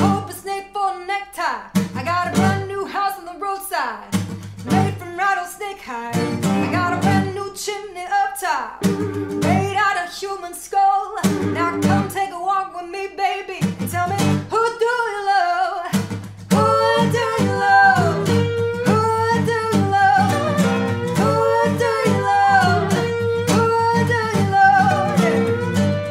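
A woman sings a blues-rock song live over an acoustic guitar and a lap steel guitar. The sung lines are broken by short stops at first, then from about sixteen seconds in the playing turns steady and louder.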